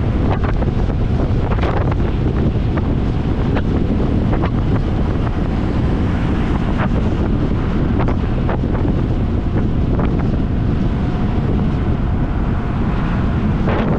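Wind buffeting the microphone of a scooter on the move, a steady loud rumble, with the ride's road and engine noise underneath and a few short clicks scattered through.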